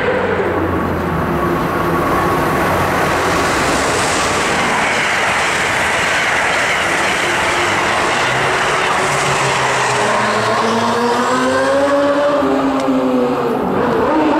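Amtrak Silver Star passenger train passing at speed on the Northeast Corridor: a loud, steady rush of steel wheels on rail as the stainless-steel coaches go by, with a whine that rises and falls near the end.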